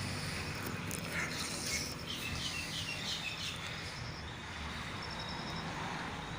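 Birds chirping: a run of short chirps a couple of seconds in, then a quick series of high notes later, over a low steady hum.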